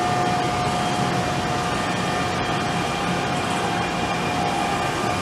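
NJ Transit electric multiple-unit commuter train rolling past at speed: a steady rush of wheels on rail with a steady whine running through it.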